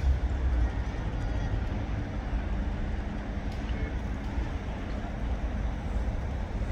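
Steady low outdoor background rumble, with no clear kingfisher call.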